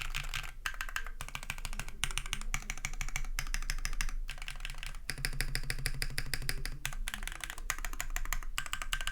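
Fast typing on a KMG B60 custom keyboard with a full carbon-fibre plate, Krytox 205g0-lubed BSUN RAW switches and JC Desko PBT keycaps. Dense runs of keystrokes are broken by several brief pauses.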